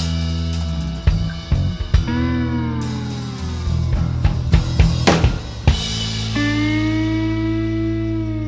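Background music with drum kit and guitar: snare and bass drum hits under sustained, bending guitar notes.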